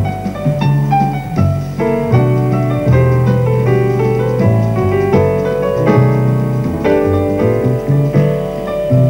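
Instrumental background music led by piano, a melody over a moving bass line.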